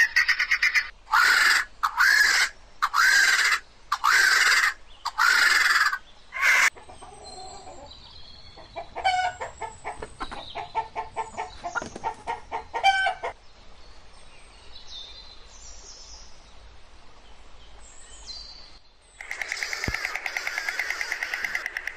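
Helmeted guineafowl give a series of loud, harsh repeated calls. About seven seconds in, these give way to softer, rapid clucking from a chicken. Near the end, a fast run of repeated bird calls comes in.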